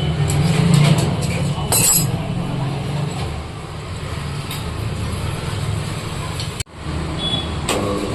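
Electric motor of a sharpening machine running with a steady low hum, with scattered metallic clicks and clinks of the scissors being handled against it. The sound drops out briefly about six and a half seconds in.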